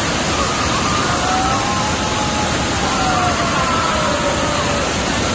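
Steady roar of the Reedy River falls in Falls Park running high at about 800 cfs. Faint slow rising and falling tones of an emergency siren wail over the roar.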